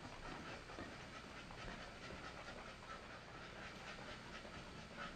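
An American Staffordshire Terrier panting faintly and rhythmically while walking on the leash.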